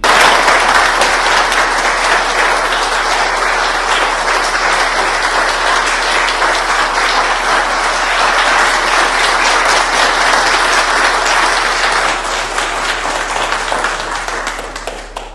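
A roomful of people applauding: the clapping starts all at once, loud and dense, then thins out over the last few seconds and stops.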